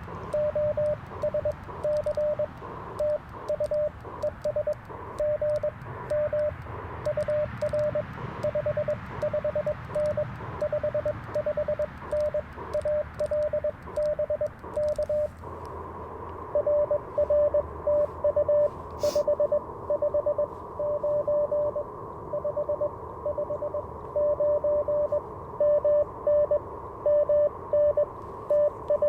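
Morse code (CW) from an Icom IC-705 transceiver: a steady mid-pitched tone keyed on and off in dots and dashes, over a hiss of band noise. About halfway through, the hiss gets louder and brighter while the keyed tone carries on.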